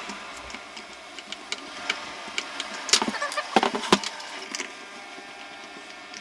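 Screws being driven back into a plastic speaker casing: scattered clicks and knocks of the screwdriver and parts, loudest in a quick cluster about three seconds in, over a steady faint mechanical hum.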